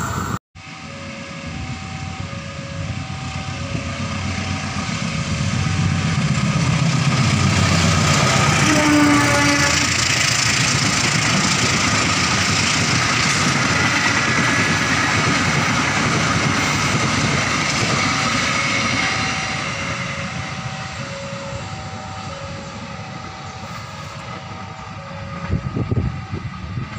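KAI passenger train coaches rolling past with a rumble that builds, holds and then fades away. Under it, a two-note electronic warning signal alternates steadily, about two notes a second, like a level-crossing alarm.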